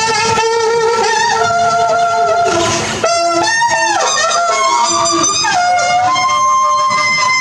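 Live improvised music mixing electronic sounds and wind-instrument tones. Several held, wavering tones overlap, with pitches sliding about three seconds in and a short hiss just before.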